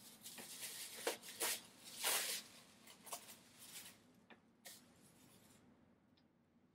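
Hands rubbing and fluffing faux-fur fox tails: scratchy rustling in irregular bursts, busiest in the first few seconds and dying away after that.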